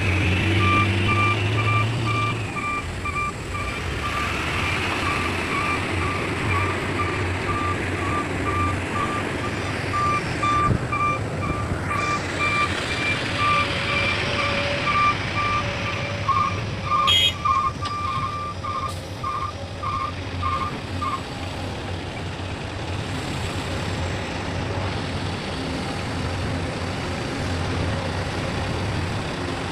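Heavy-machine backup alarm beeping about twice a second, quickening for a few seconds and then stopping about two-thirds of the way through, over a diesel engine's steady rumble.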